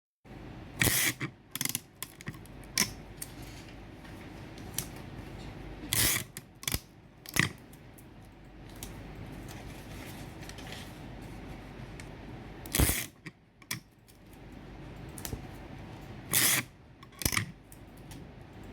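Scotch tape being pulled off the roll in short, loud rips, about six times at uneven intervals, with small clicks and handling noises between.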